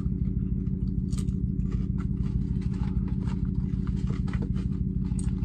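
Steady low hum of a car engine idling, heard inside the cabin, with scattered small clicks and rustles from chewing fries and handling a paper fry carton.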